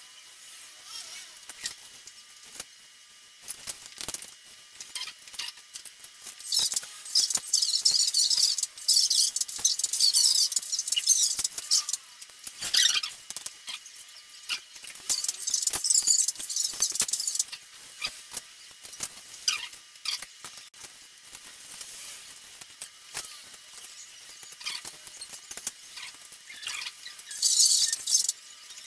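Plastic shell parts of a DJI Phantom 4 drone being handled and fitted together: scattered small clicks, with three longer spells of high scraping and rustling, the first about six seconds in and the last near the end.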